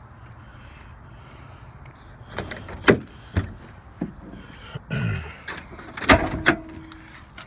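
A run of clunks and knocks from things being handled around a vehicle, likely while rummaging for a funnel, with the loudest knock about six seconds in.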